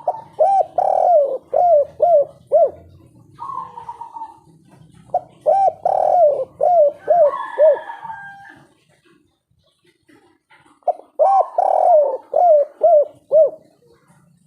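A spotted dove (tekukur) cooing its 'kuk 3' song. It gives three phrases, near the start, around the middle and near the end, each a run of short, quick coo notes.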